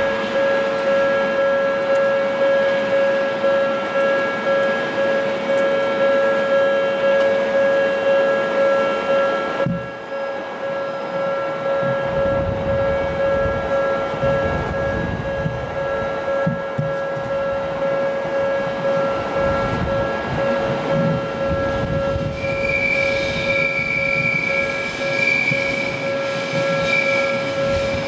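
Japanese level-crossing warning bell ringing over and over in an even repeating ding. From about halfway through, the rumble of an approaching electric commuter train builds under it, and a thin high tone sounds for a few seconds near the end.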